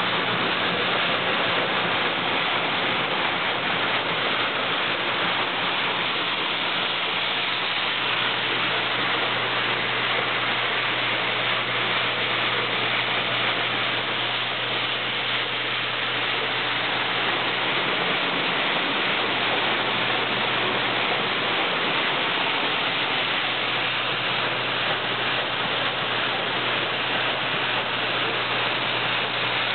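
Beans running steadily through a 1925 Meyers elevator, a constant rushing hiss, over the low steady hum of its 3 hp Masters electric motor.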